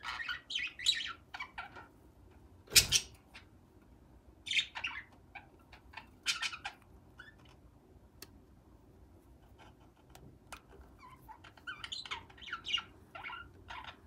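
Lovebirds chirping in a nest box: three bursts of short, high calls with pauses between them, and one sharp knock about three seconds in.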